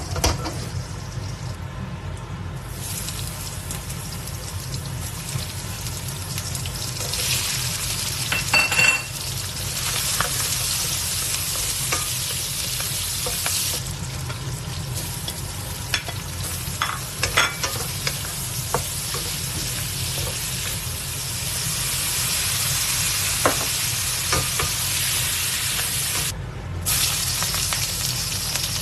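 Food sizzling as it is stir-fried in a wok, with the occasional sharp click of the spatula against the pan. A steady low hum runs underneath, and the sizzle dips briefly near the end.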